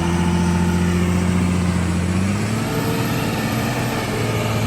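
Heavy diesel engine revved high and held there under load as the machine climbs a rough slope. The pitch dips slightly about halfway, then steadies.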